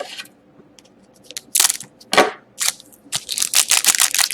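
Hockey trading-card pack and cards being handled: crinkling and crackling of packaging in several short, irregular bursts, with a fuller rustle a little after two seconds in.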